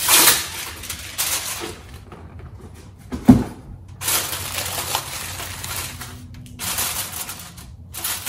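Aluminium foil crinkling and rustling in several stretches as hands press and fold a sheet down over the rim of a bowl to seal it, with one dull thump about three seconds in.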